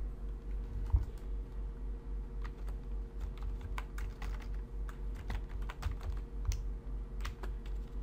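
Typing on a computer keyboard: a run of irregular keystroke clicks spelling out a word, over a steady low electrical hum.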